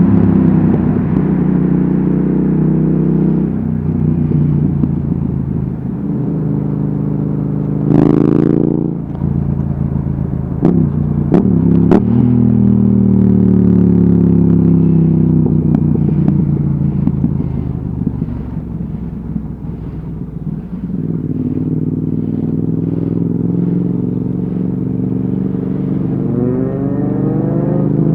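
Yamaha XSR700's 689 cc parallel-twin engine through an Akrapovic exhaust, heard from the rider's seat as it pulls away and eases off in traffic. The revs rise sharply about eight seconds in, with a few short clicks around eleven to twelve seconds, then fall away slowly and climb again near the end.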